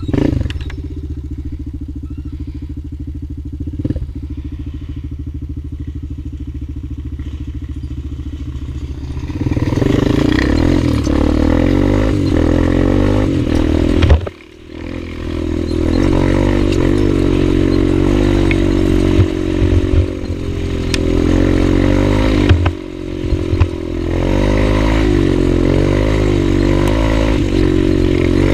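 Honda TRX250EX quad's single-cylinder four-stroke engine running steadily at low revs, then about ten seconds in it gets louder as the ATV is ridden off, its pitch rising and falling with the throttle. The engine briefly drops away about halfway through and again for a moment near the end.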